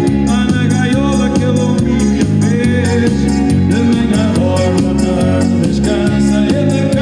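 Live band playing upbeat popular dance music, with a steady beat and a bass line.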